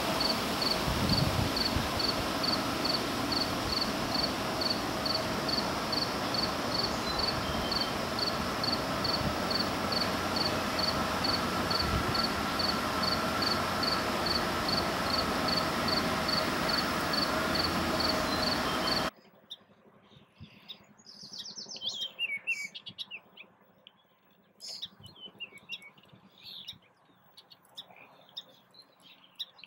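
Marsh ambience: a steady hiss with a high, thin chirp repeating evenly about three times a second. It cuts off abruptly about two-thirds of the way through, and the quieter stretch after it holds scattered bird chirps and short whistles.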